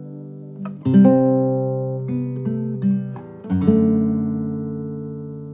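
Acoustic guitar playing chords in an instrumental passage of a song: three strummed chords, about one, two and three and a half seconds in, each left to ring and slowly fade.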